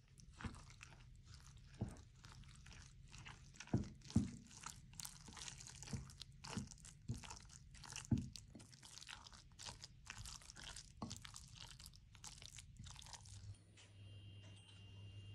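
Fork mixing grated cabbage and carrot with flour in a glass bowl: irregular wet crunching and scraping, with a few louder knocks of the fork against the glass. It stops near the end, when a steady low hum with a faint high whine sets in.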